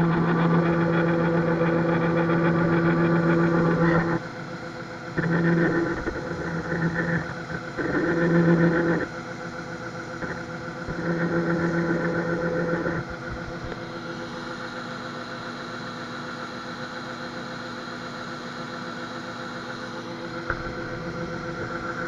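Combine harvester working in a soybean field, heard from inside the cab: a steady machine drone with a louder, level-pitched hum that cuts in and out several times in the first half, then steady running.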